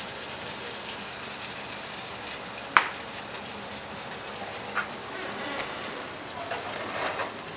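Slice of foie gras searing in a small nonstick frying pan, a steady high sizzle as its fat renders out. One sharp click about three seconds in.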